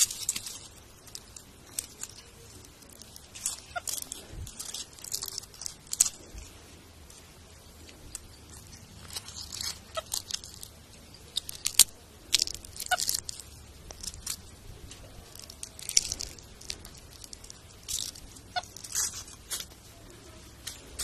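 Leaves being crushed by a person: irregular crunching and crackling in bursts separated by short pauses.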